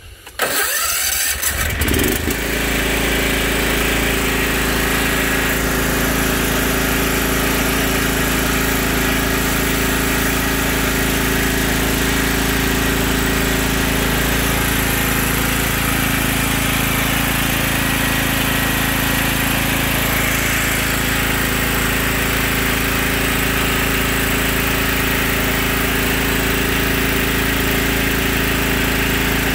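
Toro zero-turn mower engine starting about half a second in, catching at once and then running steadily.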